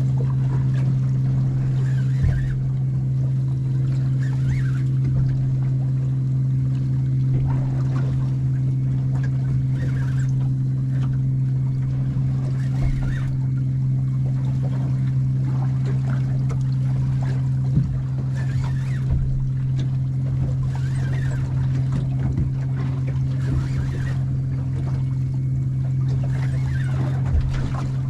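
Small boat riding at anchor, with water slapping against the hull every two to three seconds over a steady low hum.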